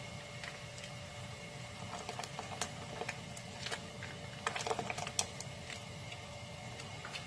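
Spicy seafood broth boiling hard in a pan, bubbling with irregular pops and crackles, in two busier clusters about two and five seconds in, over a steady low hum.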